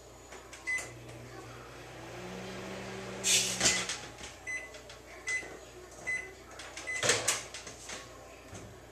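Microwave oven: a keypad beep, then the oven running with a steady hum while a DVD inside arcs with a loud crackle about three seconds in as its metal layer sparks. The oven stops and gives three short beeps, then the door clatters open.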